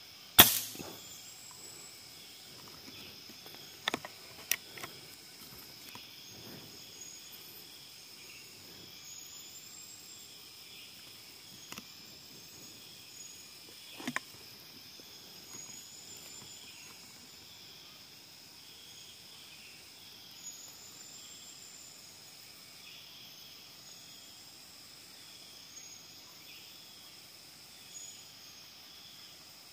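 A single sharp shot from a PCP air rifle about half a second in, followed by a few lighter clicks and knocks. Under it runs a steady, high-pitched insect drone, with a short high chirping call repeating every two to three seconds.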